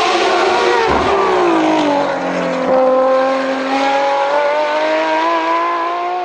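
Car engine running hard under acceleration. Its pitch drops over about a second and a half, then climbs steadily through the rest.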